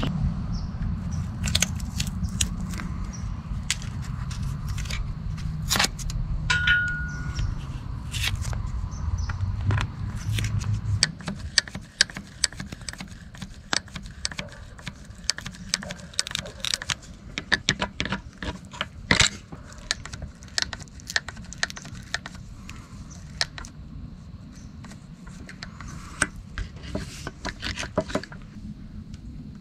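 Irregular sharp clicks, scrapes and rattles of tools and small metal parts being handled during repair work. A low rumble runs under them and stops about eleven seconds in.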